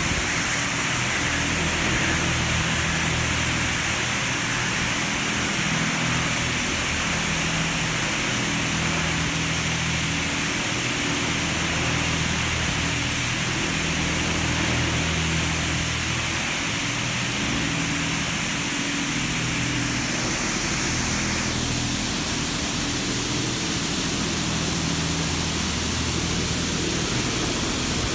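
Oasis Typhoon touchless in-bay car wash spraying high-pressure water over a car: a steady, loud hiss of spray. About three-quarters of the way through, the higher part of the hiss drops a little as the spray changes.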